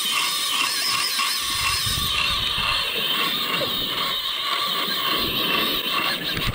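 Spinning reel's drag giving out line as a hooked fish runs: a fast, continuous ratcheting buzz.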